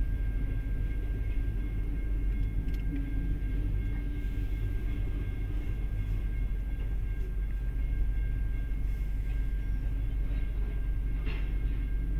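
Freight train cars rolling past: a steady low rumble of wheels on rail, with a faint steady high whine above it. Heard from inside a car.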